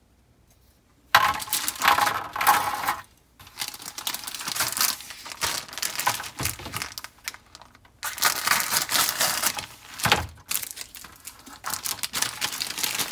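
Clear plastic bags crinkling and crackling as plastic model-kit sprues inside them are handled. It starts about a second in and goes on in several long stretches with brief pauses between them.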